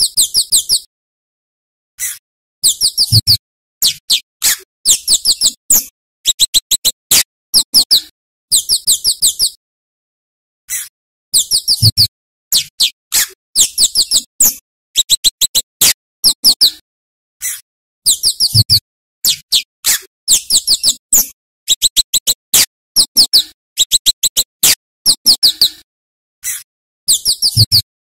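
Scarlet-headed flowerpecker (cabai jawa) calling: rapid runs of very high, sharp chip notes in quick clusters, broken by short pauses.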